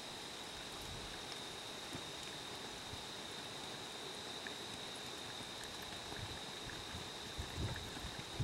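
Steady background hiss with a constant thin high whine, and a few faint muffled low thumps near the end.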